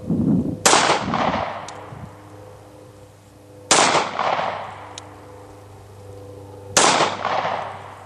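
Star Model PD .45 ACP alloy-frame pistol firing three single shots about three seconds apart, each sharp report trailing off over about a second.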